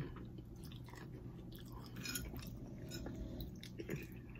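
Faint chewing of food by a person eating, with scattered small clicks of the mouth and food.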